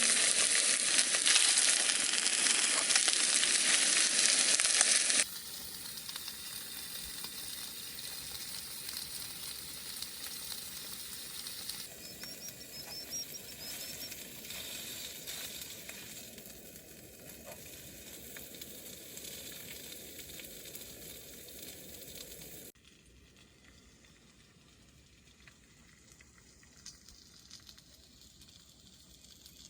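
Food sizzling in a frying pan, a steady hiss. It is loud for about the first five seconds, then drops to a quieter sizzle in a few abrupt steps.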